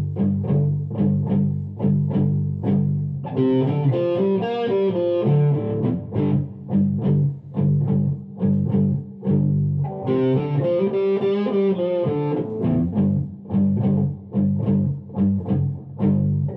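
Background music: guitar-led instrumental with a steady beat and a bass line, a melody line coming in twice.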